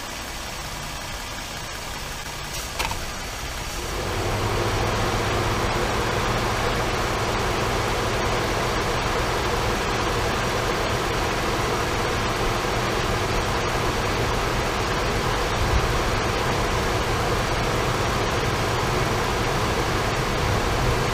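Ford truck engine idling, heard from inside the cab. A click near the three-second mark, then a steady louder rush of air comes in about four seconds in: the heater blower switched on high, loading the charging system.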